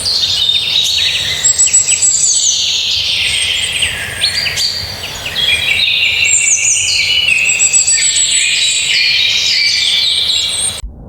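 A dense chorus of many songbirds chirping and trilling over one another, with rapid, sweeping high notes. It cuts off abruptly near the end.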